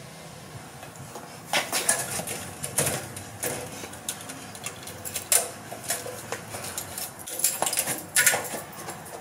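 Irregular metallic clicks and rattles of a tool worked in the latch and lock of a barred metal gate, starting about a second and a half in, with a sharper clack near the end as the gate comes open.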